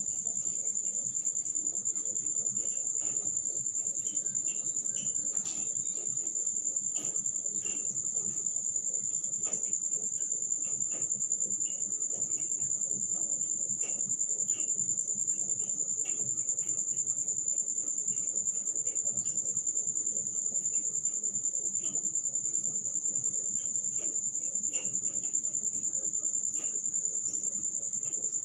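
Steady, unbroken high-pitched insect drone, over faint scattered clicks and a low background murmur.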